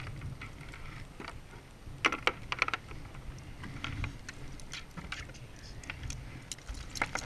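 Scattered light clicks and taps on the hard plastic deck of a BIC Trinidad sit-on-top kayak as hands and a dog leash move over it, with a quick cluster of them about two seconds in, over a low steady rumble.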